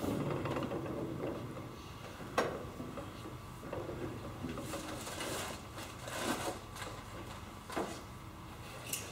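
Rustling and shifting of a person moving about inside a bare aluminum airplane cockpit, with a sharp click about two and a half seconds in and a couple of lighter clicks near the end.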